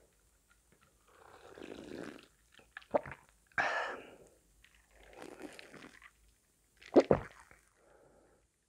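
A person sipping and gulping iced cola from a glass close to the microphone, with swallows and breathy exhales between sips. The loudest gulps come about seven seconds in.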